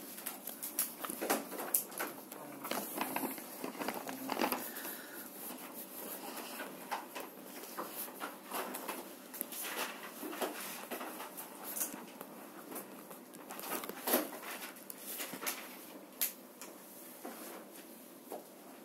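Chalk drawing on a blackboard: irregular scratches and short taps as lines are sketched, with a few sharper knocks of the chalk against the board.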